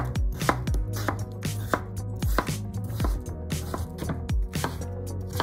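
Kitchen knife dicing raw potato on a bamboo cutting board: a steady run of knocks as the blade cuts through and strikes the board, about three a second.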